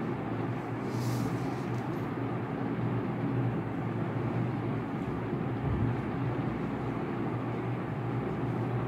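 Steady low background rumble, with a brief high hiss about a second in.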